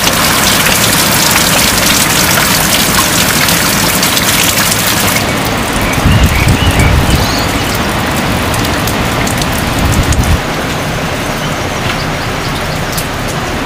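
Steady heavy rain hissing. About five seconds in, the sound changes to a softer rain, with a low rumble from about six to ten seconds.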